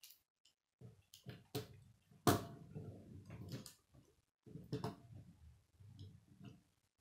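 A plastic K'nex toy car being handled and rolled on a wooden tabletop: clicks and knocks of plastic parts and wheels against the wood, with a low rumble as the wheels roll, the loudest knock about two seconds in.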